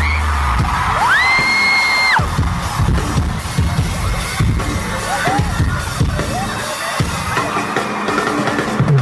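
Arena crowd screaming and cheering as a live rock song ends, with one shrill scream that sweeps up about a second in and is held for about a second. Drum thumps and crashes keep sounding over the crowd.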